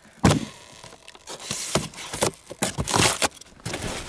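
Clear plastic film over a box being torn open by hand, crinkling and ripping in a run of irregular bursts, after a short thump just after the start.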